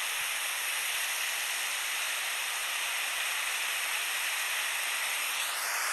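Steady hiss of a heavy downpour and rushing floodwater.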